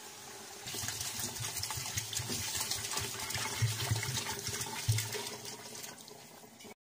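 Water poured from a plastic container into a metal pot of frying chicken, splashing into the hot oil. The pour starts about a second in and tails off near the end, then the sound cuts off abruptly.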